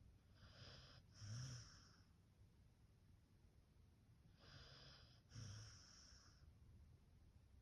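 Beagle snoring lightly in his sleep: two slow, soft breaths about four seconds apart, each in two parts, with the second part louder and carrying a low snore.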